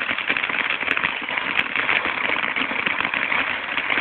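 Fireworks crackling and hissing steadily, a dense stream of rapid tiny pops.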